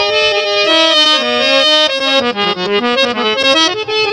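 Harmonium playing an instrumental melody in short stepped notes, between sung lines of a Punjabi folk song.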